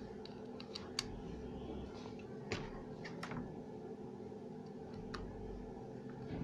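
A small screw being driven into a plastic charger case with a screwdriver, with a few separate light clicks as the case is handled and the screw turns.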